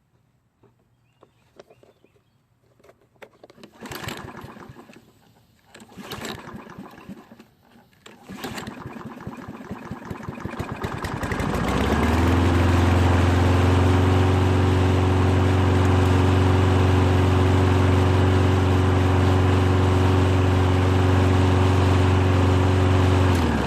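Toro lawn mower's small gasoline engine starting after a few knocks, about ten seconds in, then running steadily at a constant speed. It runs again now that the debris-plugged carburetor jet has been cleared. The engine dies away near the end.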